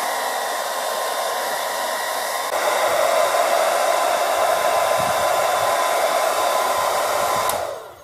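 Electric hair dryer running steadily, a rush of air with a faint motor whine, blowing on the freshly cut root of a desert rose to dry the wound. It gets louder about two and a half seconds in, then is switched off near the end and winds down.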